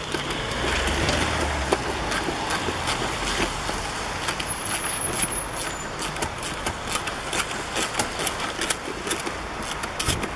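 Ratchet and socket clicking irregularly as a bolt is worked loose, over a steady background rush of traffic.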